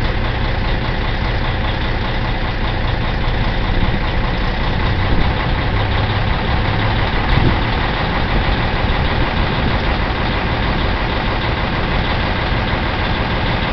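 Caterpillar C-15 inline-six diesel in a 2003 Peterbilt idling steadily, still cold shortly after a cold start in about 20 °F.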